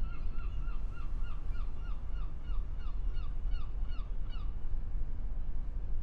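Harbour ambience: a bird calls a rapid series of short, harsh notes, about three a second, each dipping in pitch, slowing slightly and stopping about four and a half seconds in. A steady low rumble runs beneath it.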